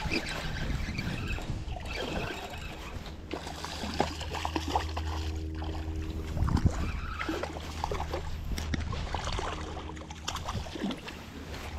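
Water splashing and sloshing as a hooked fish is reeled in to the side of a small boat, with handling knocks from the rod and reel. A steady low hum runs through the middle of the stretch.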